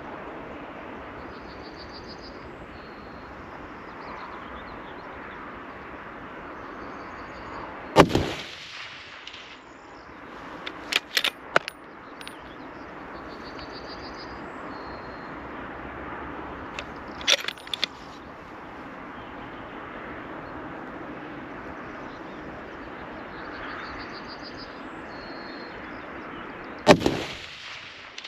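Two shots from a Tikka T3X TAC A1 bolt-action rifle in .308, about nineteen seconds apart, each with a short echo. Between them come small metallic clicks from the bolt being worked, over a steady hiss of rain.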